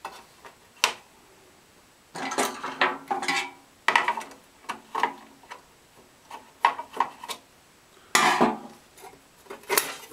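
Screwdriver clicking and scraping on the screws of a blower's metal cover plate, with clinks and scrapes of the plate against its plastic housing as it is worked loose. The handling comes in short stretches, the loudest a little after two seconds and again about eight seconds in.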